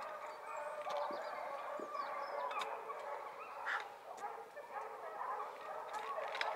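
Many animals calling at once, a steady tangle of short overlapping calls.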